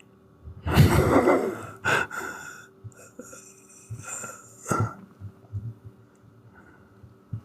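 A man's loud breathy outbursts, like a cough or sneeze, the loudest about a second in, with shorter ones near two and four seconds, over a faint steady hum.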